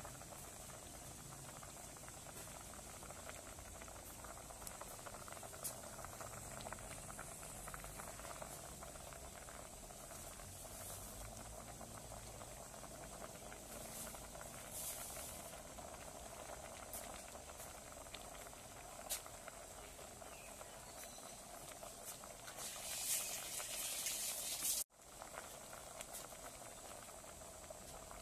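Curry broth at a rolling boil in an aluminium pot, bubbling steadily with small pops. Near the end there is a louder hiss that cuts off suddenly.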